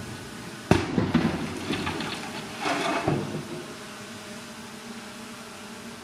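Heavy earthmoving machinery running steadily, with a sudden loud bang under a second in, a second or so of clattering knocks after it, and a short rush of noise about two seconds later.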